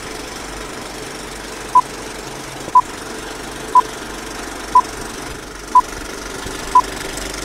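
Film-leader countdown sound effect: six short, high beeps, one a second, over a steady mechanical rattle and hiss like a running film projector.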